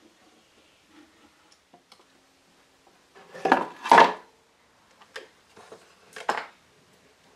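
Steel sliding bar clamps with wooden handles being loosened and lifted off a glue-up, their metal jaws and bars clacking against each other and against the wood. A few light clicks come first, then two loud clatters about halfway through and several sharper knocks toward the end. This is the clamps coming off once the glue on the new veneer strips has set.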